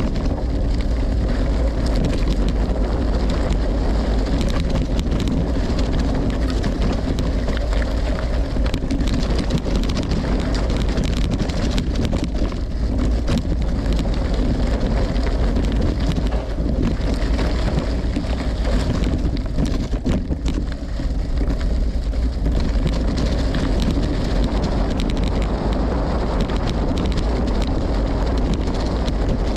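Steady wind rumble on the microphone from a gravel bike moving along at speed, with the crackle of its tyres, Maxxis Ramblers, rolling over dirt and gravel.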